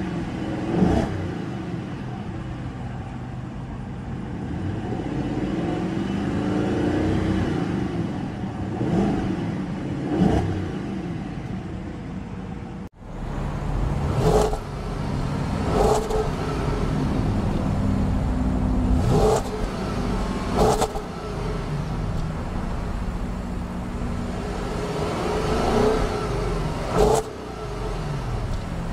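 Audi A8 L's 4.2-litre V8 revved while parked, toward a rev limiter set around 4,000 rpm. At first it is heard from inside the cabin, rising and falling; after a sudden cut about 13 seconds in, it is heard at the twin exhaust tips, idling with about five quick throttle blips.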